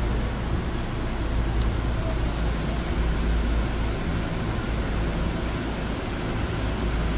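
Room tone of a hall whose standing crowd is keeping a minute of silence: a steady low rumble and hiss with a faint hum, and one faint click about one and a half seconds in.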